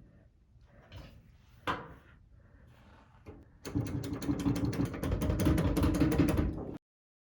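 A few light knocks and clicks, then a small motor running with rapid clicking for about three seconds that cuts off suddenly.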